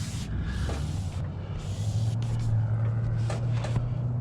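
An engine running steadily with a low hum that grows louder about two seconds in, with a few light clicks and knocks near the end.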